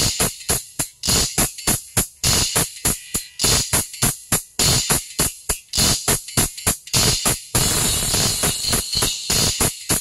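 Recorded music with a fast, steady percussion beat of about four strokes a second, bright and heavy in the treble, played through a pair of Dainty DT-105 tweeters driven by a Class D amplifier as a playback test.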